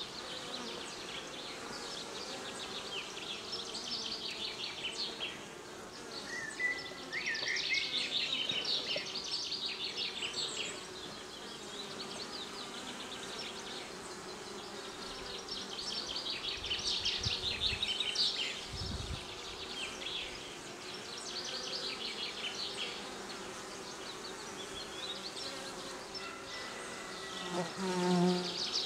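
Many honeybees buzzing at the hive entrance: a steady hum of bees landing and taking off, with a bee flying close and buzzing louder near the end. Higher chirring comes and goes in bursts over the hum.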